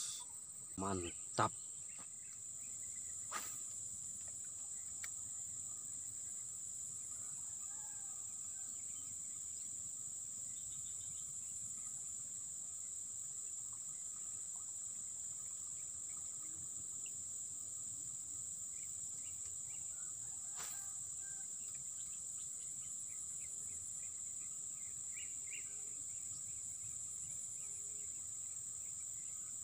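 Steady high-pitched drone of insects singing in the surrounding vegetation, with a sharp click about three seconds in and another about twenty seconds in.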